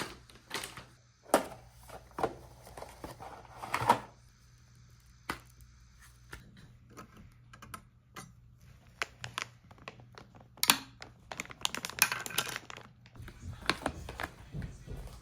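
Scattered clicks, taps and knocks of computer parts being handled and fitted onto a motherboard, with several louder clacks among lighter ticks.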